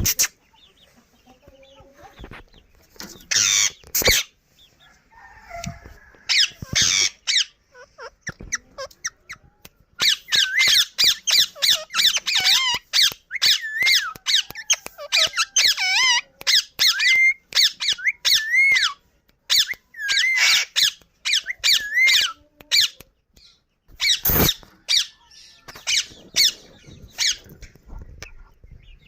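Parrot chicks begging with rapid, repeated high squeaky calls, the food-begging of chicks being fed by their mother. A few scattered calls come first, then a long dense run of calls, thinning out again near the end.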